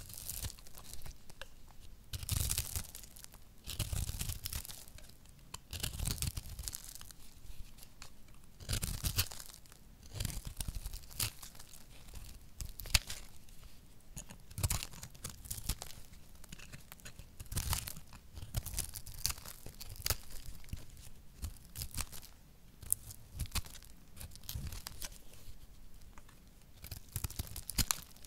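A utility-knife blade cutting into a dry recycled soap ball, shaving off flakes in irregular scraping strokes a second or two apart.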